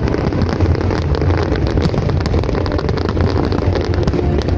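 Fireworks going off in a continuous barrage: a steady low rumble with dense crackling throughout.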